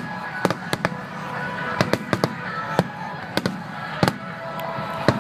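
Aerial fireworks shells bursting in quick, irregular succession, about a dozen sharp bangs over five seconds, some close together in pairs and triples.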